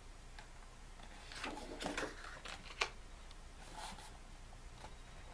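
A thick paper page of an album photo book being turned by hand: a soft paper rustle about a second and a half in, a sharp tap near three seconds, and a lighter rustle about four seconds in.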